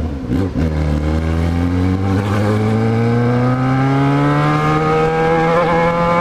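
Yamaha XJ6's 600 cc inline-four engine accelerating under way: after a short dip about half a second in, its pitch climbs slowly and evenly for about five seconds, then levels off.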